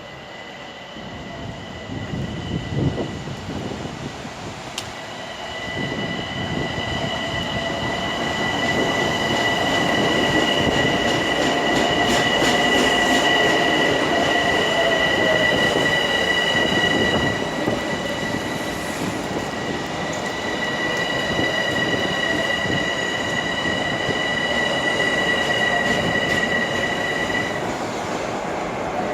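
Long Island Rail Road M7 electric train running at the station, with steady high-pitched squealing tones over the rumble of the cars. A lower motor whine rises then falls in pitch around the middle, where the train is loudest.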